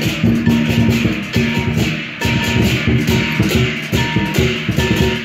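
Lion dance ensemble of drum, cymbals and gong playing a steady, driving rhythm of strokes, with the cymbals and gong ringing on between hits.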